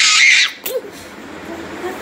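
A toddler girl's high-pitched excited shriek, lasting about half a second, followed by a short soft vocal sound and then quiet.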